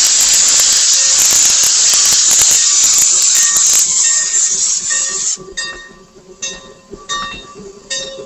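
Steam locomotive venting steam low around its wheels in a loud, steady hiss that dies away about five seconds in.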